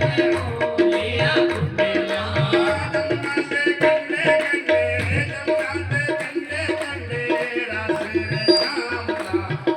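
Devotional bhajan music led by tabla drumming a steady, repeating rhythm, with held tones and a wavering melody line above it.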